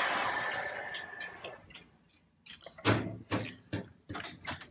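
A door sliding open on its track with a faint whine, fading out within the first second and a half, followed by a string of sharp clicks and knocks.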